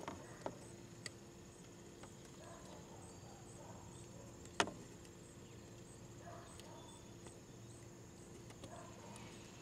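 Faint outdoor background with a steady high insect chirring, and a few small clicks from hands working the wire splice and electrical tape on a license plate light, the sharpest about four and a half seconds in.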